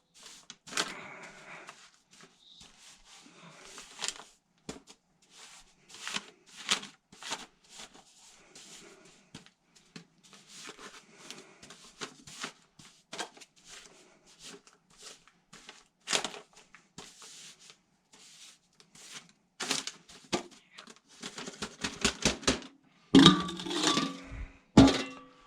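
Irregular scraping, crunching and clicking of a utensil working a wet sugar mixture into a sugar-board frame. It grows louder and busier near the end.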